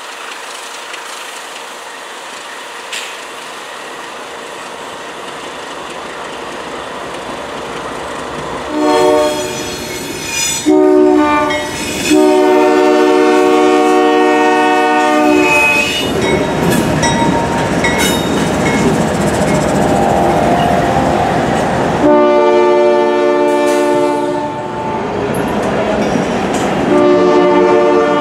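CSX freight train's lead GE ES40DC locomotive sounding its air horn in several blasts for a road crossing; the longest blast is about three seconds. Between the blasts comes the rumble of the locomotives and cars passing. The first nine seconds or so hold only a steady hiss.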